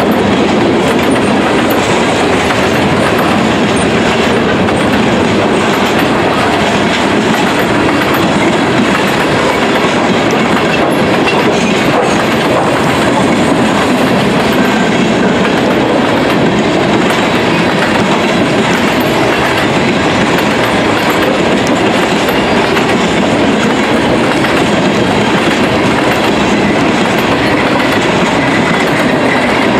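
Freight train's loaded flatcars rolling past steadily, wheels running over the rails with an even, continuous clatter.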